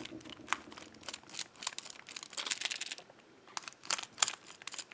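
Irregular light clicks and short scrapes of a small screwdriver and padlock parts being handled as the screw is undone to open a dimple lockout padlock.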